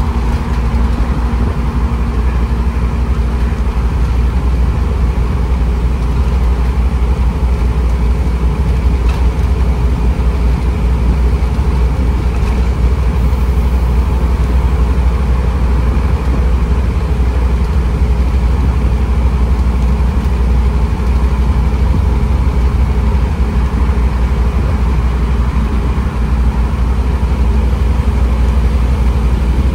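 Scania N230UB OmniCity bus's five-cylinder diesel engine running steadily: a low, constant drone with no revving.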